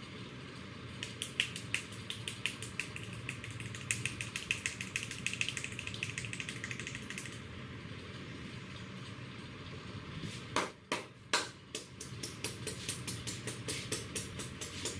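Rapid hand tapping on a head during an Indian head massage: quick runs of sharp, even pats, several a second. About ten seconds in they give way to three louder, sharper slaps, then the quick tapping resumes.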